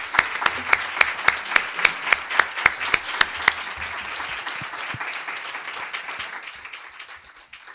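Applause from the audience and panel, with sharp single claps close to the microphone standing out about three times a second for the first few seconds, then the clapping thins and dies away near the end.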